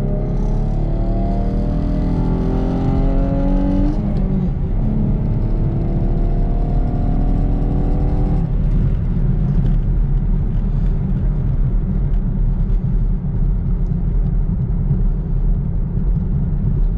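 Manual Chevrolet Camaro accelerating hard down a drag strip, heard from inside the cabin. The engine note climbs in pitch, drops at a gear change about four seconds in, and climbs again. About eight seconds in the engine tone fades, leaving a steady low rumble. The clutch holds without slipping.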